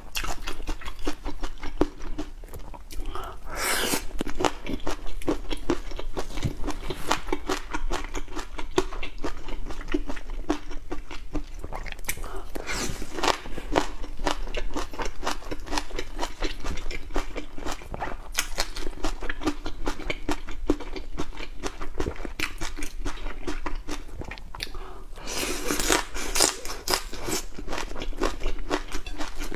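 A person chewing, picked up close by a collar mic, on a spicy shrimp roll topped with chili and peanuts: a dense run of small crunches and clicks. Louder stretches come about four seconds in and again near the end.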